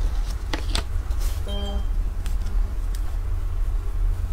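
A soft bread roll filled with pumpkin and cheese is torn open by hand, giving faint soft rustling and tearing over a steady low rumble. A brief pitched tone comes about a second and a half in.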